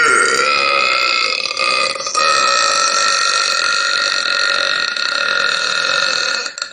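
One very long, loud burp, held at a steady pitch for over six seconds, with a brief dip about two seconds in before it carries on and ends shortly before the end.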